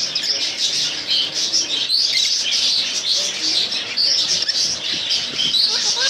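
Many caged birds chirping together: a dense, continuous twittering of short high chirps with no pause.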